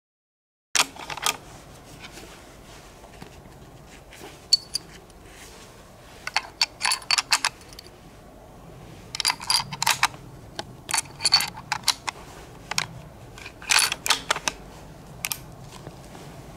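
Metallic clicks and clacks from a CZ 550 bolt-action rifle in .30-06 being handled and loaded, the bolt worked back and forth. The clicks come in several short clusters with pauses between.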